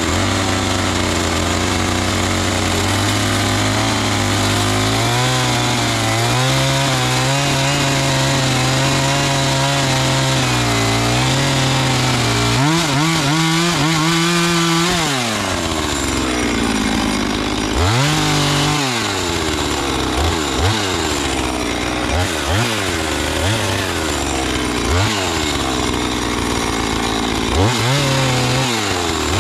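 Gas-powered saw engine cutting lumber, running steadily at speed. Its pitch dips and swells about halfway through, then it revs up and drops back in short blips, about one every second or two, near the end.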